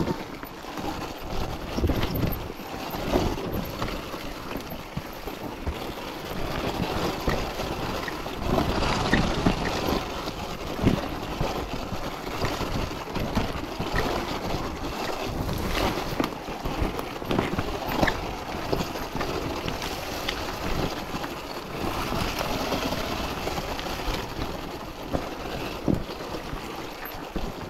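Wind rushing over the microphone and running noise from a Sur-Ron electric dirt bike in motion, broken by frequent short knocks.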